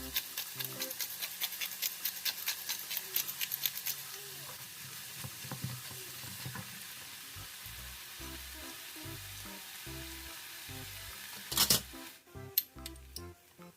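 Food sizzling in a frying pan while being stirred, with quick tapping of the utensil against the pan over the first few seconds. A loud knock comes near the end, and the sizzling stops right after it.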